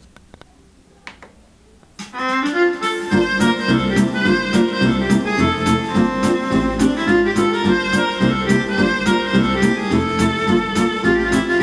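Instrumental intro music starting about two seconds in, with a steady beat and a bass line entering about a second later.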